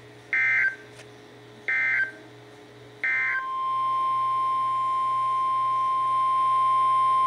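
Three short bursts of EAS SAME digital data tones, a warbling two-pitch chirp, about a second and a half apart. About three and a half seconds in, the steady single-pitch 1050 Hz NOAA Weather Radio alert tone starts and holds, marking the start of a new warning.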